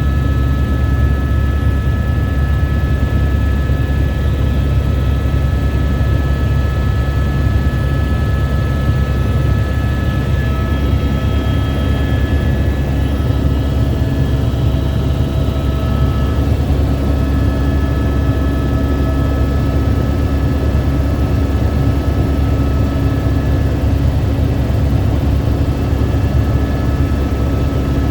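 Helicopter engine and rotor running steadily in flight, heard on board: a loud, even rumble with a few steady whining tones above it.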